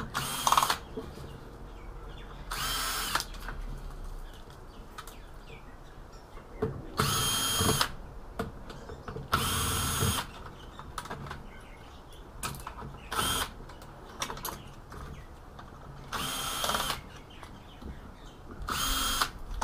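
Cordless drill-driver backing screws out of the CRT's aluminium backing plate in about six short runs of under a second each, with small clicks of screws and metal being handled between runs.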